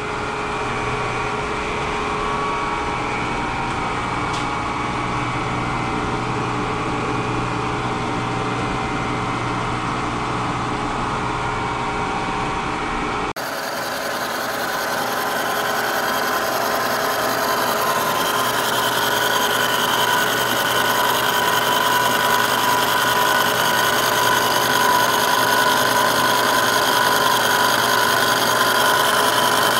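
Kearney & Trecker milling machine running a carbide-insert face mill across a cast iron casting: a steady machining noise with held whining tones. About halfway through the sound changes abruptly to a brighter, slightly louder steady cutting noise.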